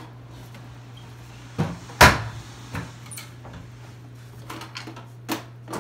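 Knocks and clunks from handling a large aquarium's propped-up hood. One loud knock comes about two seconds in, with a softer one just before it and several lighter taps after, over a steady low hum.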